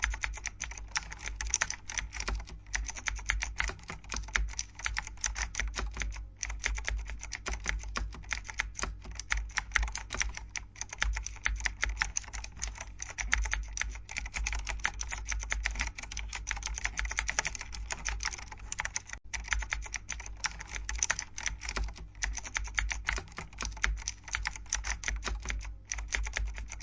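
R8 aluminium-top-panel RGB mechanical keyboard being typed on rapidly: a dense, continuous run of key clicks with a few brief pauses.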